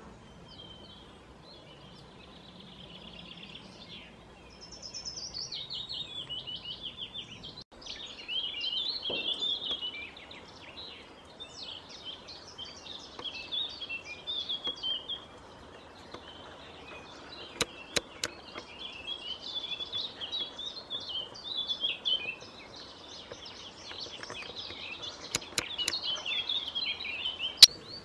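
Outdoor ambience of several songbirds singing, with varied, overlapping chirping phrases. A few sharp clicks come in the second half, the loudest just before the end.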